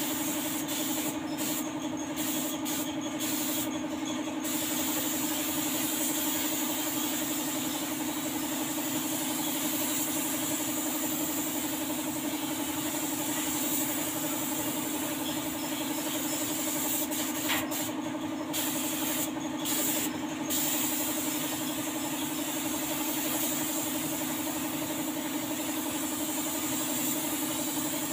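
Air spray gun hissing as paint is sprayed onto a car panel, the hiss breaking off for short moments several times near the start and again past the middle as the trigger is released between passes, over the steady hum of a running air compressor.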